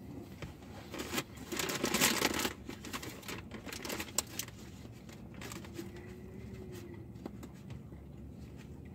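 Paper burger wrapper crinkling and rustling in bursts, loudest about two seconds in, with a few small clicks from handling it.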